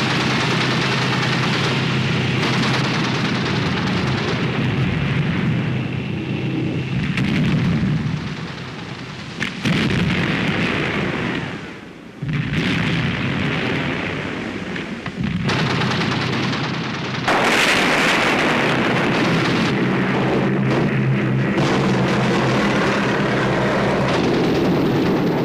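War-film soundtrack of a B-17 Flying Fortress bomber in combat: the steady drone of its four piston engines mixed with explosions and gunfire. The sound changes abruptly at several cuts and is loudest from about two-thirds of the way in.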